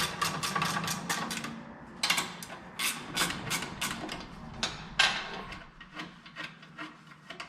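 A dash panel being taken off with hand tools: a quick, even run of clicks, about eight a second, for the first two seconds or so, then irregular scraping, clicks and knocks.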